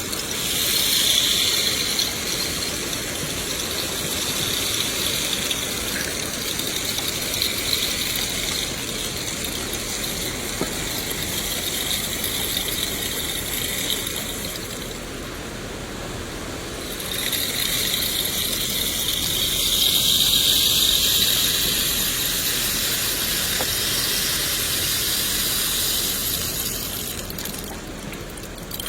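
Continuous rain hiss with a bright, hissy edge. It swells about a second in, thins briefly around the middle, and swells again later before easing near the end.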